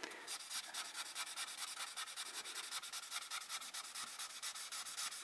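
Imagine Ink marker scribbling on a colouring-book page, with quick, even back-and-forth strokes of the tip rubbing the paper, several strokes a second, faint.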